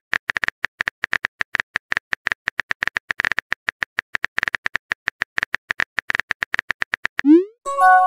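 Phone keyboard typing clicks, rapid and even, several a second, as a message is typed out. About seven seconds in, a short rising swoosh follows, then a brief chime as the message is sent.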